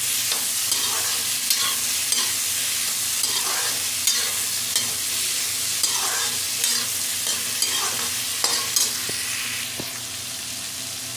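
Chopped vegetables sizzling in oil in a metal kadhai while a steel spatula stirs and scrapes them, scraping every second or so. The stirring stops near the end, leaving the steady sizzle.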